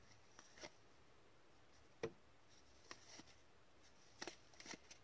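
Faint, scattered soft clicks and slides of hockey trading cards being flipped off a stack one at a time by gloved hands, the sharpest click about two seconds in and a quick few together past the four-second mark.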